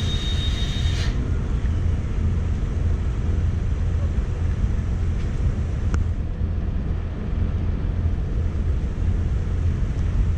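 Ferry's engines running with a steady low rumble, with wind on the microphone.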